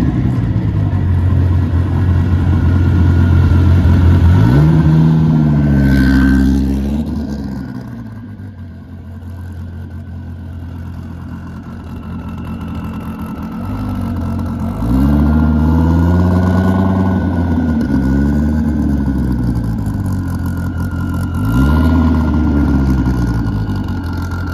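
Twin-turbo 2014 Dodge Viper's V10 engine running loud and low at idle and light throttle, blipped several times: revs rise and fall about four seconds in, again in a cluster around fifteen to eighteen seconds in, and once more near the end.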